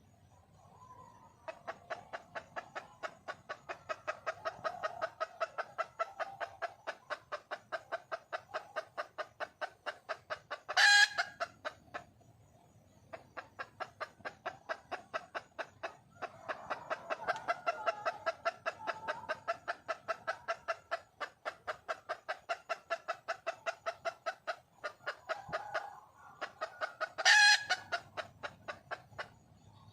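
Junglefowl hen calling for a mate: two long runs of rapid, evenly spaced clucks, each ending in a short, much louder squawk.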